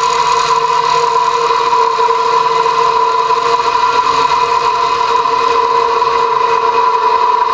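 1950s GMF 8-inch heavy-duty bench grinder's electric motor and wheels coasting down after switch-off, a steady whine with a hum underneath. The long run-on shows free-turning bearings, though they don't sound too healthy.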